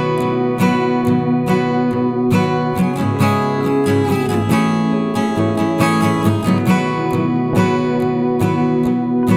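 Background music: acoustic guitar strumming chords at a steady rhythm.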